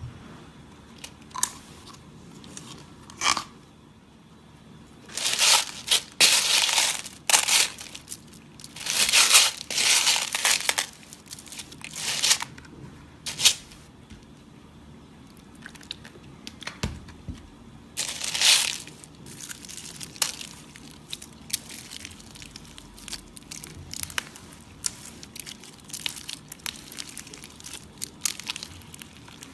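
Slime being squeezed and pressed by hand: bursts of crackling, crunchy squishing, loudest in the middle stretch, then fainter quick clicks and pops.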